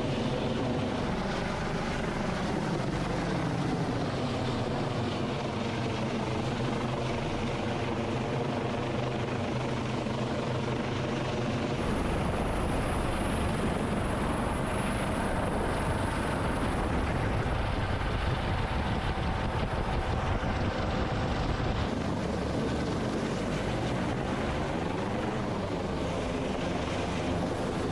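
MH-65 Dolphin helicopter running, a steady rotor and turbine noise with pitched lines that slowly bend up and down. About twelve seconds in, the low rumble grows stronger and a thin high whine joins. Both ease off again about ten seconds later.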